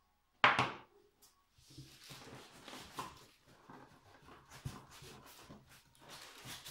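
A sharp clunk as the drywall sander's handle with its metal tube is set down on a wooden tabletop, followed by soft handling and rustling, with a hand rummaging in the cardboard box near the end.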